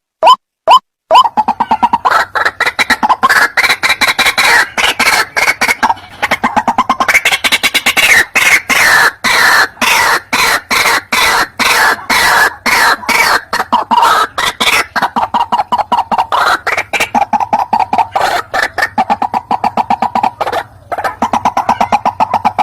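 White-breasted waterhen calls: a long, rapid run of croaking call notes that starts about a second in and continues without break.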